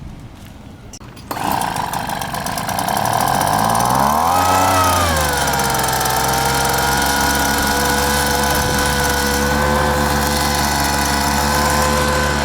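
Gas leaf blower engine starting up about a second in, revving up and back down around four seconds, then running steadily at a fast, even speed.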